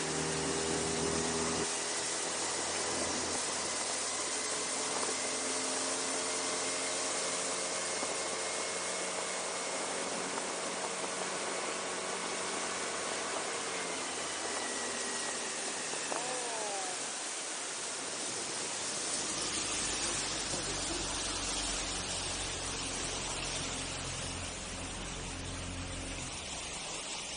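Small boat's outboard motor running steadily under way, its drone drifting slightly in pitch under a loud hiss of wind and water rush. About two-thirds of the way through the sound turns deeper and heavier.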